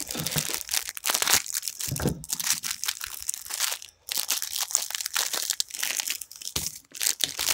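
Plastic wrapping of an MRE accessory pack crinkling and rustling as the pack is opened and its contents handled, with a short pause about four seconds in and a few low thumps.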